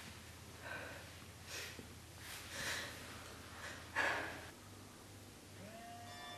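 A woman's sobbing breaths and sniffles, coming about once a second, the strongest about four seconds in. Near the end a steady high tone slides in and holds.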